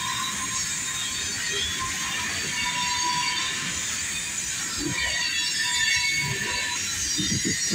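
Freight train rolling past with a steady rumble and knocks from its cars, and the steel wheels squealing on the rail in thin high tones.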